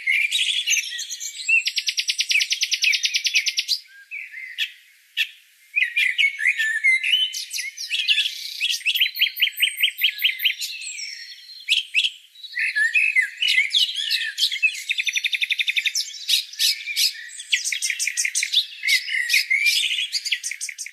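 Songbirds chirping and singing, several calls overlapping, with rapid trills coming in every few seconds.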